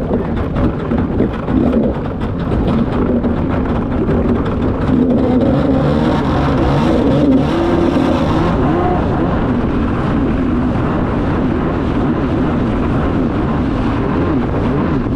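Kawasaki 650SX stand-up jet ski's two-stroke twin running under way, its pitch rising and falling with the throttle, over water rushing past. Many sharp slaps in the first few seconds as the hull hits chop.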